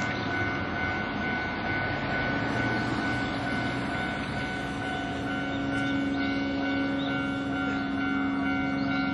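Japanese level-crossing warning bell ringing steadily, its electronic tone held at full volume, over a low rumble of passing rail and road traffic.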